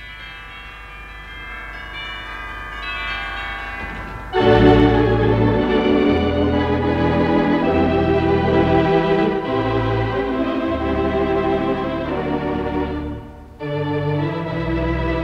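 A 4/14-rank Wurlitzer theatre organ playing. Soft held chords swell for about four seconds, then the full organ comes in suddenly with deep pedal bass notes. The sound briefly drops away near the end and then resumes. It is heard as an off-air radio broadcast taped on a mono recorder.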